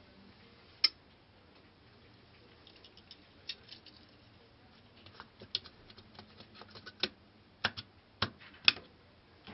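Plastic clicks and taps as an auxiliary contact module is handled and pressed onto the side of a contactor until it latches. One sharp click about a second in, then scattered clicks that cluster into a run of sharper clicks over the last few seconds.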